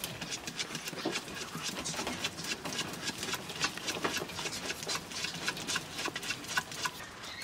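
Mink in wire-mesh cages: dense, irregular clicking and scratching, with a few short high-pitched sounds among them.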